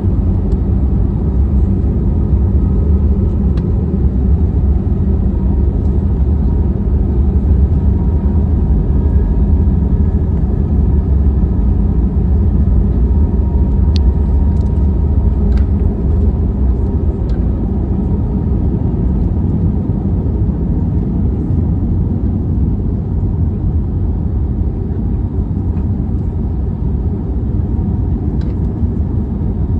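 Steady, loud cabin rumble of an Airbus A321neo airliner climbing out after takeoff: engine and airflow noise heard from a seat inside the cabin, with a few faint clicks.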